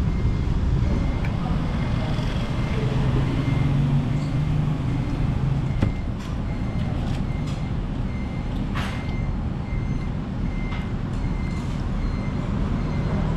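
Steady low traffic rumble with a short high beep repeating at an even pace, typical of a vehicle's reversing alarm. There is one sharp clack about two-thirds of the way through.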